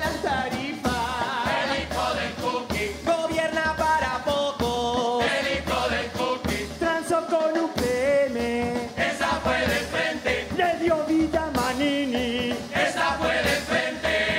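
Uruguayan murga chorus singing in several-part harmony over the murga's drum kit of bombo, snare drum and cymbals, which keeps a steady beat.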